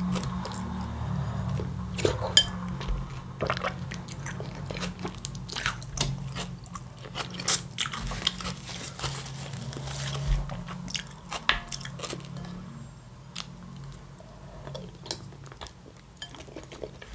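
Close-miked eating: chewing and biting, with irregular crunchy clicks and smacks over a low wavering hum.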